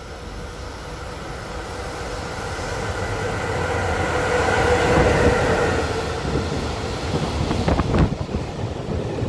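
EF66 electric locomotive hauling a container freight train through the station at speed: a rumble with a steady whine grows louder as the locomotive approaches and passes about halfway through. Then the container wagons rush past, with a burst of wheel clatter over the rail joints near the end.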